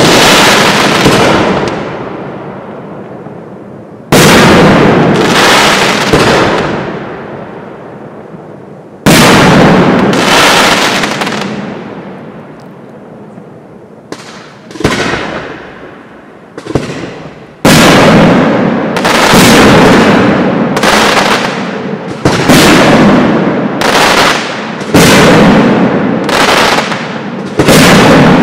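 Aerial firework shells bursting, each a sharp bang followed by a long rolling echo that fades over a few seconds. The first bangs come several seconds apart, then about two-thirds of the way in a quicker run of bursts follows, roughly one a second.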